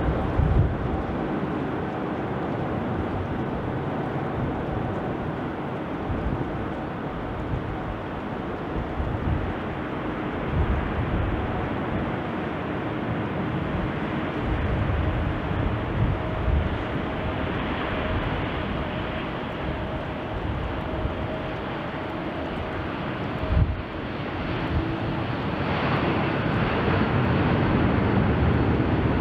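Jet engines of a Boeing 787 Dreamliner (GEnx turbofans) during landing and rollout: a steady jet rumble with a faint humming tone. There is a short sharp knock about three-quarters of the way through, and the sound grows louder over the last few seconds.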